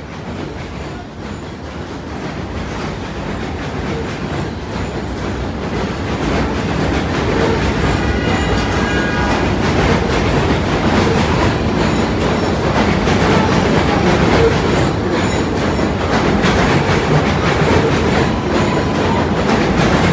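R46 subway train running past along the platform, the rumble of its wheels and motors growing steadily louder. A brief high whine sounds about eight seconds in.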